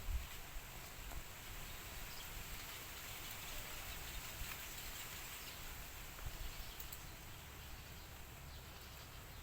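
Faint outdoor ambience: a steady hiss with a few low knocks in the first second.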